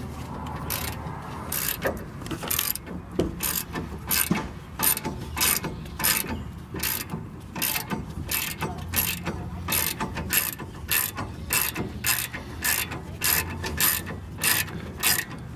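Socket ratchet clicking as it turns a bolt on a 2017 Chevrolet Colorado's rear brake caliper. The clicks come in short, regular bursts about twice a second.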